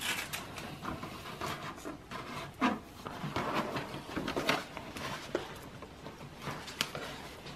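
Cardboard cake box being opened and handled: scattered rustles, scrapes and light taps of the cardboard flaps.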